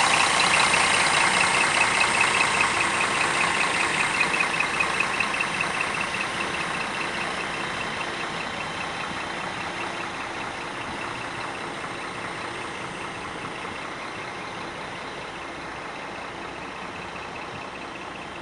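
Scania diesel engine of an Irizar New Century coach idling with an even diesel clatter, growing steadily fainter.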